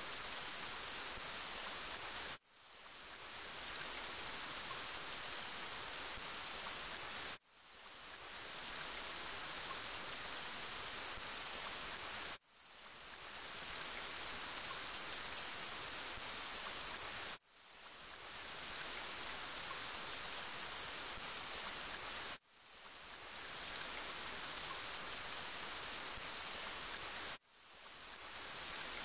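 Steady rain hiss. It drops out abruptly about every five seconds and swells back in over a second, six times in all.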